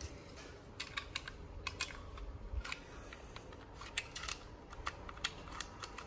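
Light, irregular plastic clicks and taps as AA batteries are pressed into the battery compartment of a plastic RC remote control and its lid is fitted.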